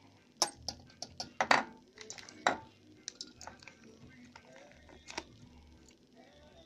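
Hard plastic clicks and clacks from a travel plug adapter and a plug being handled. Several sharp knocks fall in the first two and a half seconds, and one more comes near five seconds.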